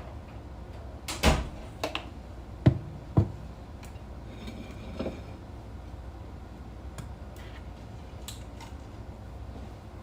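A few sharp knocks and thuds, the loudest about a second in and two more around three seconds in, then a few fainter clicks, over a steady low hum.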